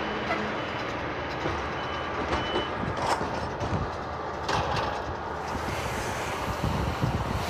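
Tractor engine running and a McHale round baler-wrapper working as it is pulled along a swath of cut grass, a steady mechanical rumble with scattered clicks and clatter.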